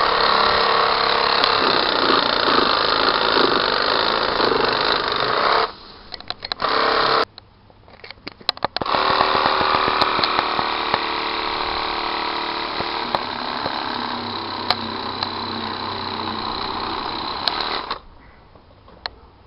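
Motor-driven telescopic pole saw running as its blade cuts into branches. It stops about six seconds in, with a brief burst and a few clicks in the pause, starts again about three seconds later, and cuts off once more near the end.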